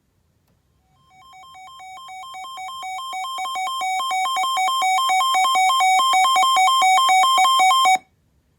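Electronic alert tone: rapid beeps alternating between a lower and a higher pitch. It fades in and grows steadily louder for about seven seconds, then cuts off abruptly.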